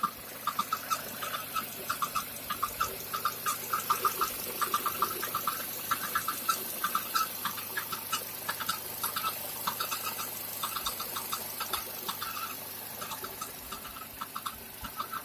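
Recirculation valve knocking: a rapid, irregular light clicking, several clicks a second in uneven clusters, over a faint steady background hum.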